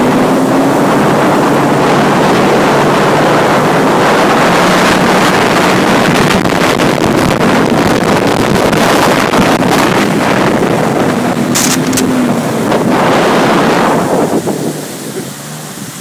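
Sea-Doo RXP personal watercraft running at speed, its engine hum under heavy wind on the microphone and rushing water from the wake. The noise drops away near the end.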